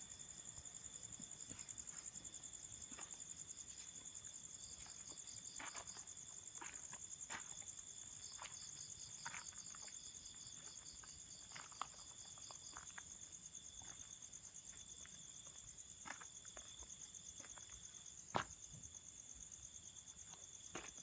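Night insects, crickets among them, trilling steadily: a fast-pulsing high trill with a lower chirping trill over it that comes and goes. Scattered light clicks and taps throughout, with one sharper knock about 18 seconds in.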